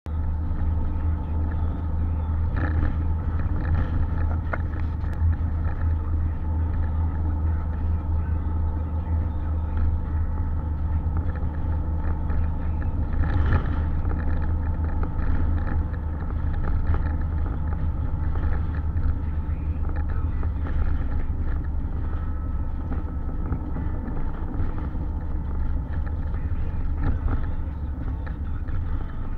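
Car driving steadily, heard from inside the cabin: a constant low drone of engine and tyres on the road, with a few short knocks from bumps in the surface.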